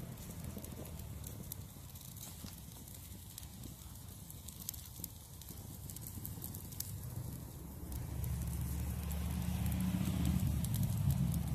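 Wood fire of beech with apple and cherry wood crackling, with many scattered sharp pops over a steady low noise. A low rumble swells about eight seconds in.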